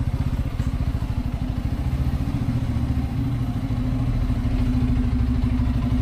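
Bajaj Pulsar N250's single-cylinder engine running near idle as the bike creeps along at walking pace, a steady, rapid even putter.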